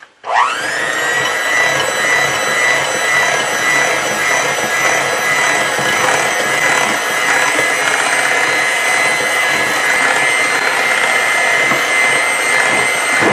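Black+Decker electric hand mixer switching on with a quick rising whine as its motor spins up, then running steadily with its beaters working flour into cake batter.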